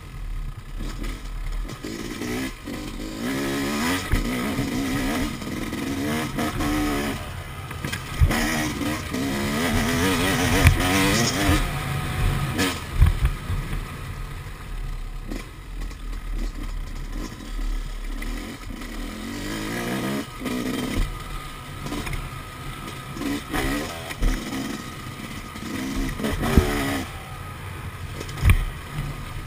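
Yamaha YZ250 two-stroke motocross bike's engine revving up and down as it is ridden along a dirt track, its pitch rising and falling with the throttle, with sharp knocks now and then from the bike over bumps.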